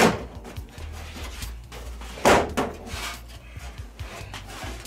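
Plastic back cover of a Sony KD-65X750H TV being pried off by hand: its clips snap loose with two sharp cracks about two seconds apart, among smaller clicks.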